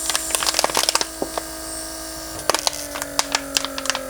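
Mercedes W140 PSE central-locking pressure/vacuum pump's electric motor running with a steady whine, its pitch sagging slowly in the second half, while a plastic bottle on its port crackles with many sharp clicks as it inflates or deflates.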